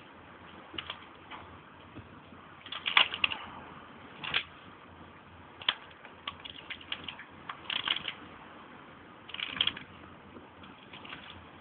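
Dry dead branches cracking and snapping in irregular bursts of sharp crackles, the loudest clusters about 3, 4.5, 8 and 9.5 seconds in, as a dead tree's limbs are bent and broken.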